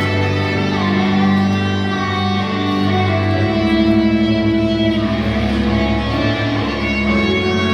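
Instrumental music with held chords that change every few seconds.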